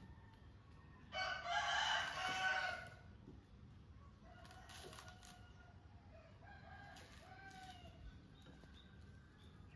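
Rooster crowing: one loud crow about a second in, lasting nearly two seconds, then two fainter crows later on.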